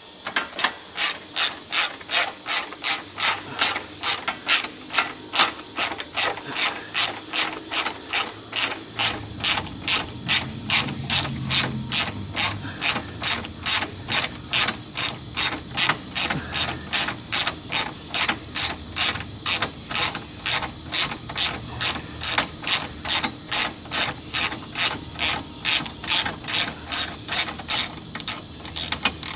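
Hand ratchet wrench clicking steadily, about three clicks a second, as bolts are worked loose on a truck's A/C condenser mounting.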